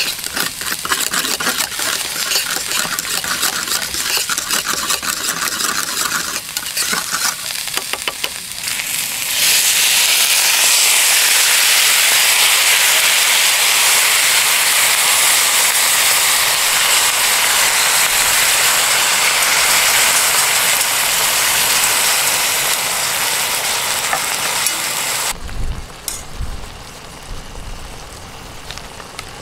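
A utensil clicks and scrapes against a stainless steel cup as a miso sauce is stirred. About nine seconds in, a loud, steady sizzle starts as the sauce is poured into a hot pan of cabbage and vegetables for chanchan-yaki. Near the end come a few low thumps, and the sizzle drops sharply quieter.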